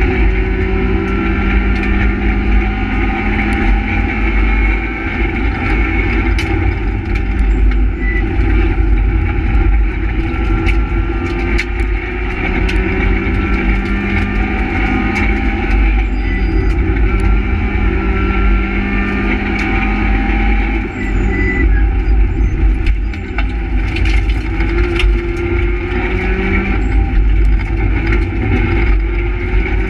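Renault Twingo R1 rally car's engine heard from inside the cabin, revving up through the gears at full stage pace, its pitch repeatedly climbing and dropping back at each shift. Steady tyre and road noise, with frequent sharp knocks and rattles from the car.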